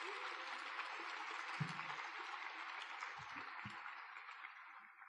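Audience applauding, fading out near the end, with a few short low thumps partway through.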